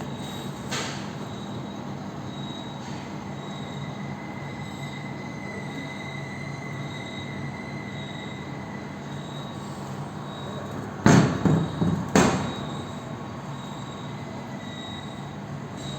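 Gas-shielded arc welding on 2 mm steel: a steady welding hiss with a low hum. Two loud sudden bursts come about eleven and twelve seconds in.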